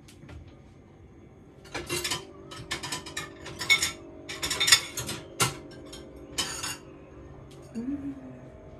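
Dishes and cutlery clattering as a plate is fetched from the kitchen cupboard and dish rack, in a run of short rattling bursts over about five seconds.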